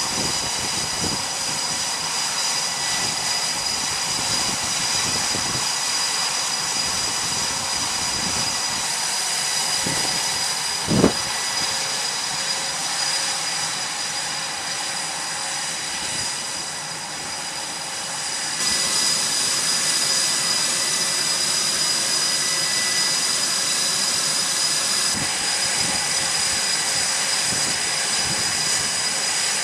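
Jet aircraft engines running with a steady high-pitched whine over a wash of noise, with one sharp knock about eleven seconds in. The whine steps up in level about two-thirds of the way through.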